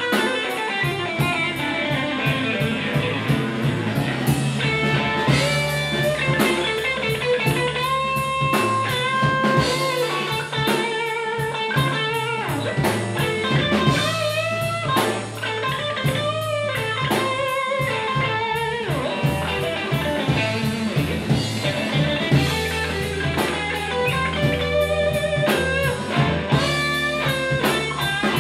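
Live blues band playing an instrumental stretch of a West Side Chicago blues: electric guitar over bass and drums, with a steady cymbal beat.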